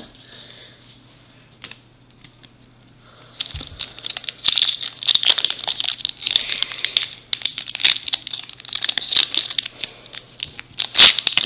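Hands crinkling and tearing at the foil-lined wrapper of a Topps baseball card pack, which is hard to open from one side: a dense crackle starting about three seconds in, with a loud rip near the end.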